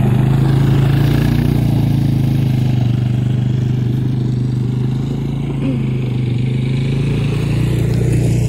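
Small off-road motorbike engine running with a steady drone, its pitch holding fairly even.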